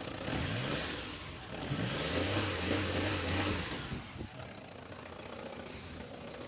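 1997 Toyota Prado diesel engine revved up twice and held briefly, then dropping back to a quieter idle about four seconds in. It is running again after its fuel shut-off solenoid was rewired, curing a crank-but-no-start fault.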